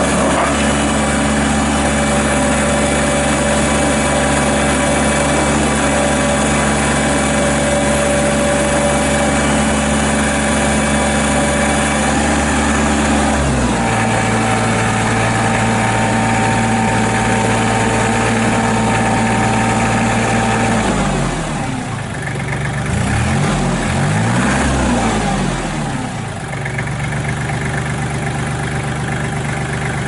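The diesel engine of a 2007 Kubota L3430 hydrostatic compact tractor loader backhoe runs steadily while the tractor drives. About halfway through, the engine speed steps up and holds. Near the end it dips and rises a few times, then settles back to a steady run.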